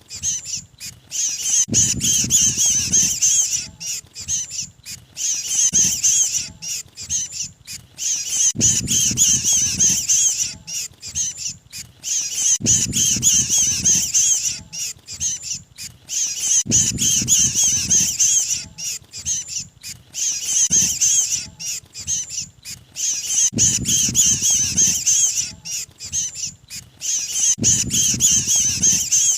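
Mantenan birds giving rapid, harsh, high-pitched chattering distress calls: the 'trapped bird' call used as a lure to draw others of the species in. A low rumble comes and goes every few seconds beneath the calls.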